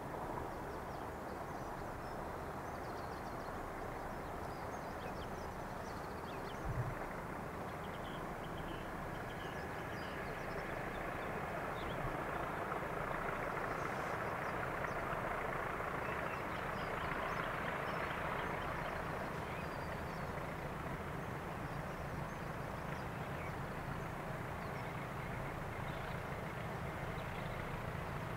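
Distant pair of Class 20 diesel locomotives with English Electric eight-cylinder engines, working hard on an upgrade: a steady drone that grows louder as they approach. A single low thump about seven seconds in.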